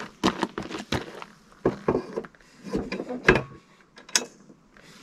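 A string of knocks, clunks and clicks as a Starlink dish's mast is seated in its mount on a homemade wooden stand and its cable coil is handled. The loudest clunk comes a little past the middle, with a sharp click just after.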